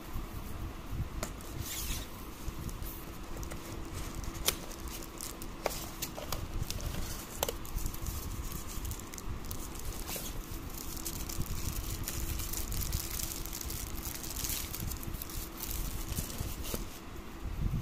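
Rustling and crinkling of paper wrapping and cardboard with many scattered small clicks and taps, as a light bulb is lifted out of its box insert, over a faint steady hum.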